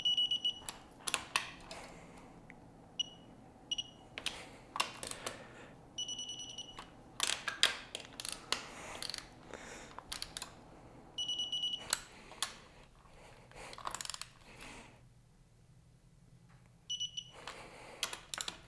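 Electronic torque wrench tightening clutch-cover bolts to about six foot-pounds. It gives a high beep or a quick run of beeps that runs into a short steady tone as each bolt reaches torque, with ratchet clicking between the beeps.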